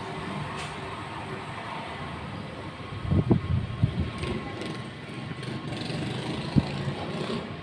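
Dust-storm wind rushing against the microphone, with a cluster of heavy low buffets about three seconds in and one more sharp buffet near the end.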